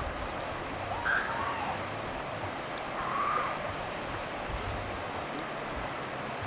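River water rushing over rapids, a steady hiss, with two short faint higher-pitched sounds over it about one and three seconds in.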